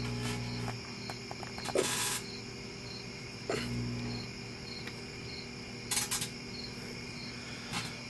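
Microwave oven running with aluminium foil balls arcing inside: a steady hum under a continuous crackling electrical buzz from the sparks and plasma, with louder hissing flare-ups about two seconds in and again about six seconds in. It sounds like a Tesla coil's buzz.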